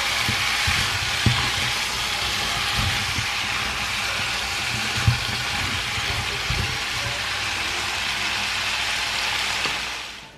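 Stir-fried vegetables (green beans, cauliflower, zucchini and onion) sizzling steadily in a nonstick frying pan as a spatula stirs them, with scattered soft knocks of the spatula against the pan. The sizzle fades out near the end.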